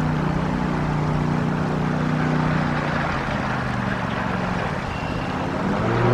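Lawnmower engine running steadily, with its pitch shifting a little now and then.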